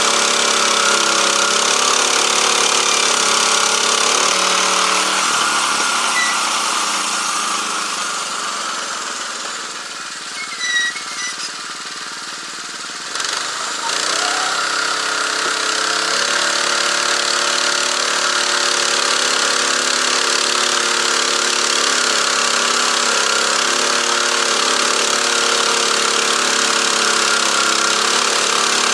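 Engine-driven portable band sawmill running, its blade cutting through a log. Near the middle the engine eases off and runs quieter for several seconds, then picks up again for the next cut.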